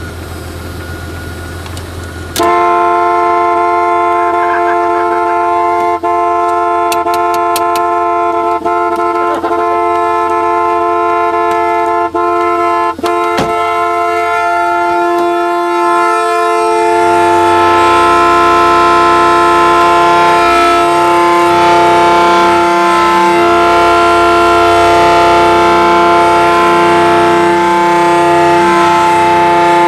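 A hot-wired Jeep's horn stuck on, blaring continuously. It starts suddenly about two seconds in, after a low engine hum, and holds one steady chord with a few brief dropouts.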